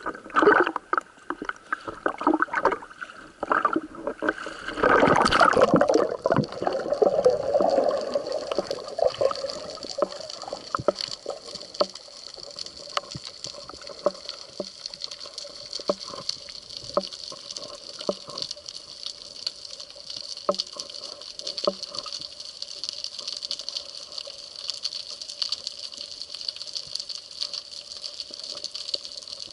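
Underwater water noise during a spearfishing dive: loud churning and bubbling for about the first eight seconds. After that it settles into a steady muffled hiss with scattered short clicks.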